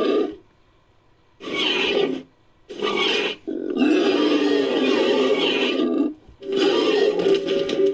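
Designed creature vocalisation built from Entelodon sound clips: a series of pitched, growling animal calls. A call trails off at the start, then after a pause come four more, two short ones, a long one of about two and a half seconds, and a last one of about a second and a half.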